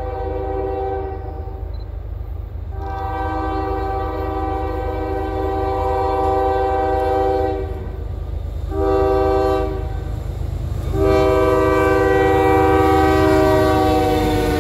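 CSX freight train's lead diesel locomotive sounding its multi-note air horn in the grade-crossing pattern: the end of one long blast, a second long blast, a short one, then a final long blast held as the locomotives come alongside. Beneath it runs the low rumble of the locomotives, growing louder near the end.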